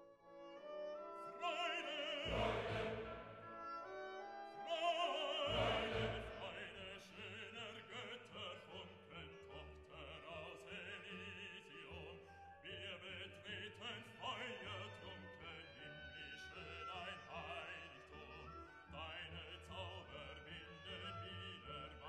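Background classical music: an operatic voice singing with vibrato over an orchestra.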